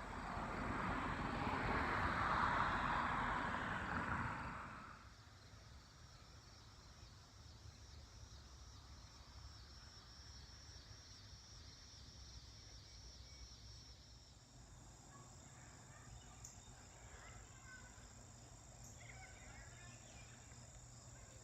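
A loud rushing noise swells and then dies away over the first five seconds. After that, insects trill steadily: a high, pulsing chirp, joined by a second, higher steady trill about two-thirds of the way through.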